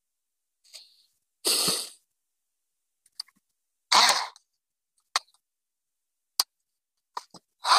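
Hand tools being picked up and handled on a workbench: two short scraping, rustling bursts and a few sharp separate clicks, with silence between them.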